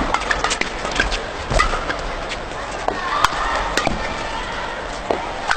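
Badminton rackets striking a shuttlecock in a fast rally: sharp, irregular cracks about every half second to second, with brief squeaks of shoes on the court and a low arena crowd murmur underneath.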